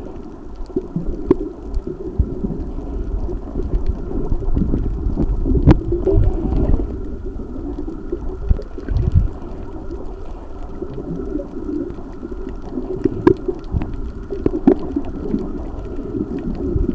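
Muffled underwater sound picked up by a submerged camera: a steady low rumble and swash of moving water, with a few sharp clicks and low thumps here and there.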